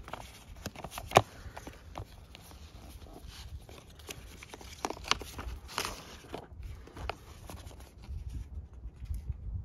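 Paper and card being handled: a documentation envelope slid out of a cardboard box tray and a printed booklet opened, giving rustles and sharp taps, the loudest about a second in. A low rumble rises near the end.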